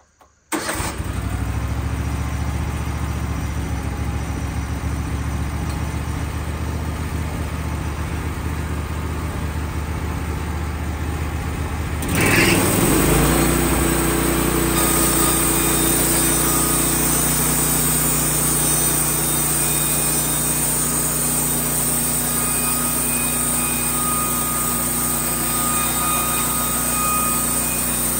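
Wood-Mizer LT15 bandsaw mill's gasoline engine starting about half a second in and running steadily. About twelve seconds in it speeds up and gets louder as the band blade is brought up to cutting speed, and the saw head then runs down the board, edging it.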